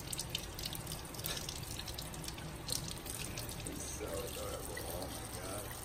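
Kitchen faucet running steadily, its stream splashing over a puppy's body and into a stainless steel sink.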